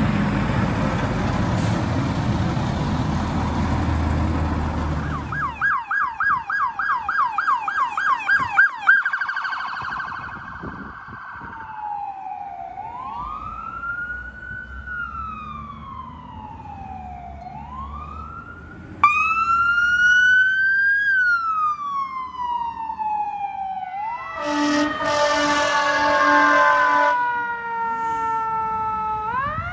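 Fire truck sirens. After a loud steady rush of engine and road noise, an electronic siren cuts in on a fast yelp and then slows into a rising-and-falling wail. A second, louder siren starts suddenly, wailing down and up, with a few seconds of air-horn blasts under it.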